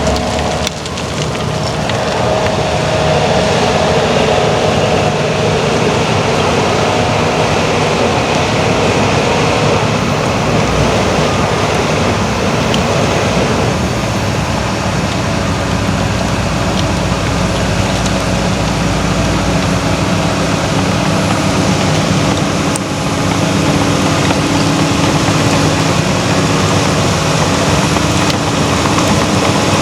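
Heavy diesel earthmoving machinery running steadily under load: an excavator and a bulldozer at work. The engine note changes about halfway through.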